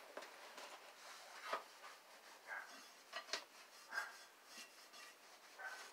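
Faint rustling with a few light taps and knocks scattered through it, from a person moving about and handling things while crouched beside a mini bike.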